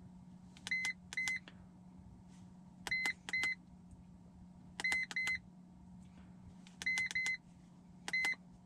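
Handheld iCarSoft POR v2.0 OBD2 scan tool beeping as its buttons are pressed to step through the menus. The beeps are short and high, mostly in pairs, with about one pair every two seconds and a single beep near the end.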